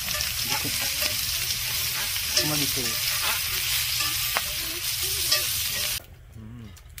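Whole raw shrimp sizzling in butter in a cast-iron skillet over charcoal, with metal tongs clicking against the pan as the shrimp are turned. The sizzle cuts off suddenly about six seconds in, leaving quieter sound with a few light clicks.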